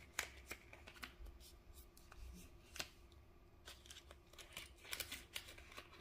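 Faint crinkling and small clicks of polymer banknotes being unfolded and handled, with a clear plastic zip pouch being opened.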